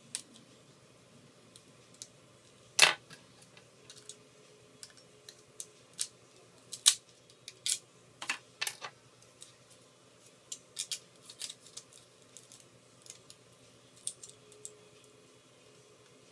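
Irregular small clicks and taps of metal tools and small parts working on an iPhone 4 being taken apart, the sharpest click about three seconds in, over a quiet room hum.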